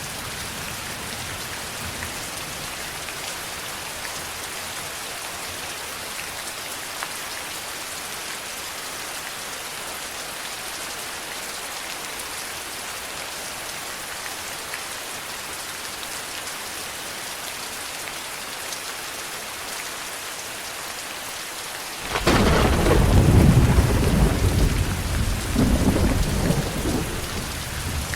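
Steady rain falling, an even hiss, until near the end a loud crack of thunder breaks in and rolls on as a deep rumble that slowly fades.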